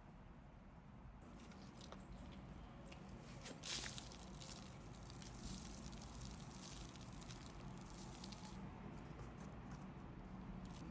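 Soft, irregular rustling and crumbling of potting soil being handled while a houseplant is repotted, with one louder scrape about four seconds in.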